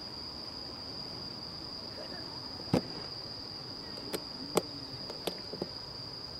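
Crickets trilling, one steady high-pitched tone. A sharp knock comes a little under three seconds in, and a few fainter clicks and knocks follow between about four and six seconds in.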